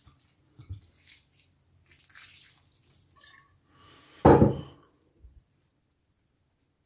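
Wine poured from a glass bottle over venison in a baking dish: a faint trickle and drip of liquid, then one loud knock about four seconds in.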